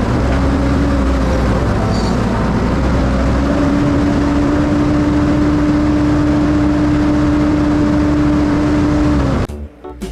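A heavy vehicle's engine running steadily with a droning tone that steps up slightly in pitch about three and a half seconds in. It cuts off abruptly near the end.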